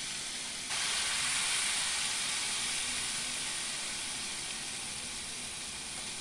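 Palmyra-palm-fruit malpua batter deep-frying in refined vegetable oil, a steady sizzle. About a second in, a second ladleful drops into the oil and the sizzling grows louder, then slowly eases.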